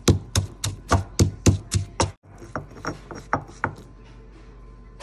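Stone pestle pounding garlic, coriander root and white pepper into a paste in a granite mortar, with dull thuds at about four a second. After a brief break about two seconds in come five softer strikes, and then the pounding stops.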